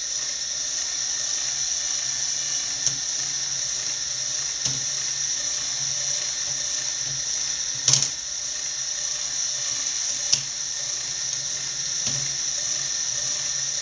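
Lego Technic mechanical loom running: a steady whir from its motor and plastic gears, broken by a few sharp plastic clacks as the mechanism moves the shuttle and beater, the loudest about eight seconds in.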